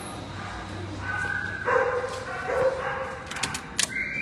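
A dog calling in the shelter kennels, with its loudest calls about two seconds in, followed near the end by a few sharp metallic clicks from a kennel cage door latch being handled.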